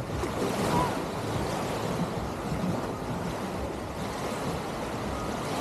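Small waves breaking and washing up onto a sandy beach: a steady wash of surf.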